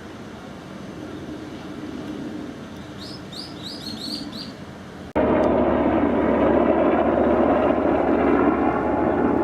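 Birds chirping briefly over a low outdoor hum. About five seconds in, an abrupt jump to a loud, dense noise with a steady tone from the fire command vehicle's electronic siren, a unit made by Osaka Siren.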